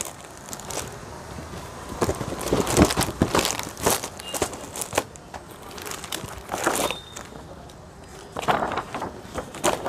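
Clear plastic wrapping on boxed sarees crinkling and rustling as the boxes are handled, in irregular crackles.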